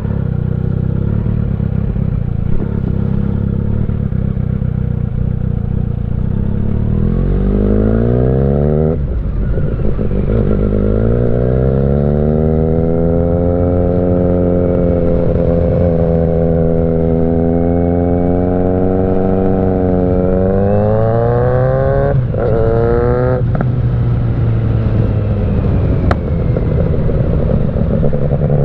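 Kawasaki Z900's inline-four engine through a Mivv GP Pro exhaust while riding: the revs climb, drop at a gear change about nine seconds in, hold fairly steady, then climb again with two quick upshifts near the end.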